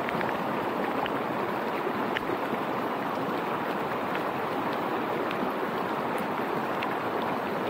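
Steady rush of a rain-swollen river and heavy rain, with a few faint ticks scattered through it.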